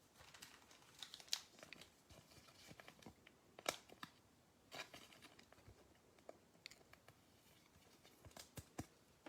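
Faint crinkling and rustling of thin plastic and card stock, with scattered soft clicks: a trading card being slid into a plastic sleeve.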